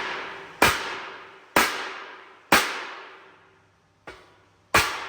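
Hammer blows on a steel tank, about one a second, each strike ringing and fading before the next: four strong blows and a lighter one near the end, typical of hammering a weld-distorted tank back into round.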